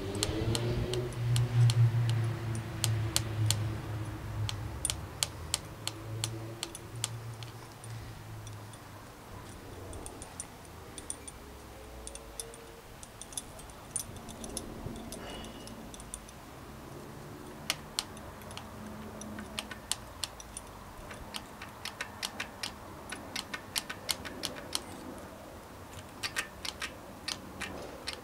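Small metal brake parts clicking and ticking irregularly as a Shimano Deore cantilever front brake is fitted and adjusted by hand. A low rumble runs underneath for the first few seconds, then fades.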